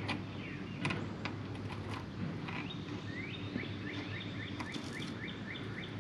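A few light metal clicks as a small axle key is fitted to a riding mower's rear axle shaft, with a bird singing a run of about ten quick upward-sweeping chirps in the middle, over a faint steady low hum.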